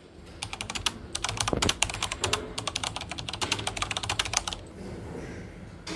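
Typing on a computer keyboard: a quick, uneven run of key clicks that stops about four and a half seconds in.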